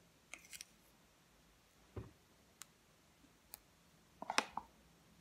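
Scattered small clicks and taps from handling a plastic paint tube while squeezing paint onto slime, with a duller knock about two seconds in and the loudest cluster of clicks near the end.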